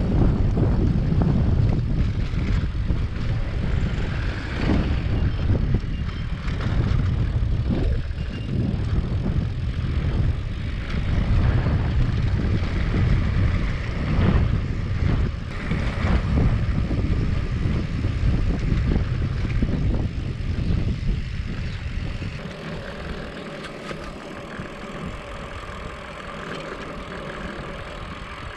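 Wind buffeting the microphone of a handlebar-mounted camera on a moving bicycle, with tyre rumble on the road: a loud, gusty low rumble that eases and turns to a quieter steady hum about twenty-two seconds in.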